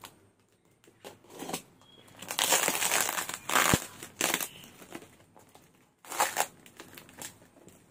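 Packing tape and cardboard tearing and crinkling as a taped parcel is slit with a box cutter and peeled open by hand. It comes in irregular bursts, the longest and loudest from about two to four seconds in, with another short burst near six seconds.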